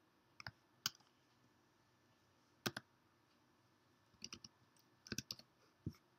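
Faint computer keyboard keystrokes: scattered taps in pairs and short runs, with about a dozen clicks over six seconds.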